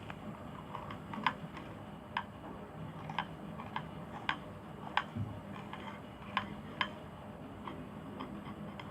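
Scattered sharp clicks and taps, about ten of them at irregular intervals, as a stirring utensil knocks against the container while slime glue is mixed.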